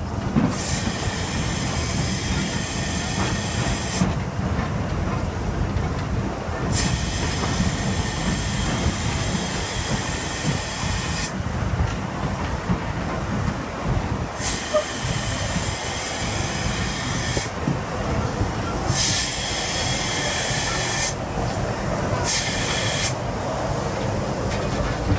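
LNER B12 steam locomotive heard from the footplate as it runs slowly along a platform: a steady low running rumble under five bursts of steam hiss that start and stop sharply, the first three lasting three to four seconds each and the last two shorter.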